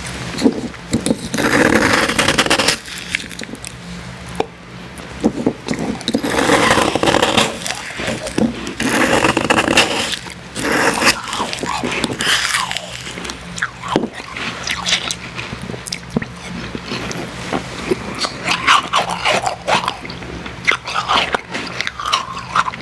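Close-miked eating of icy Icee slush: crunching and chewing in several long stretches, with many short crackly clicks between them.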